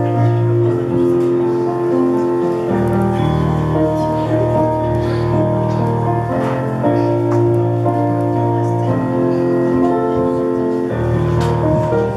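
Slow instrumental keyboard music, held chords changing every second or two.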